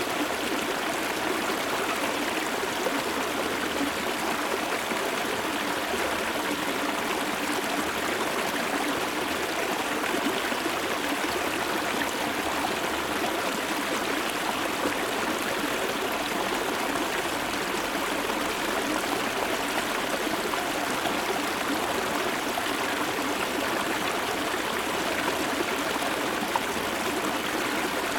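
Shallow, low-water river stream flowing steadily, heard from about half a metre away.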